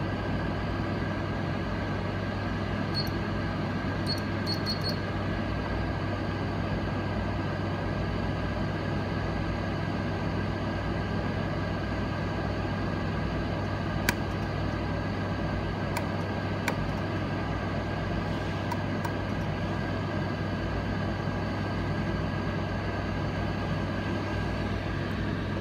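Steady mechanical hum at an even level, with a few sharp clicks scattered through it, the clearest about 14 and 16 seconds in.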